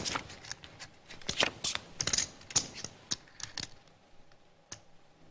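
Poker chips clicking together in quick runs of small, sharp clicks, thinning out to a few single clicks near the end.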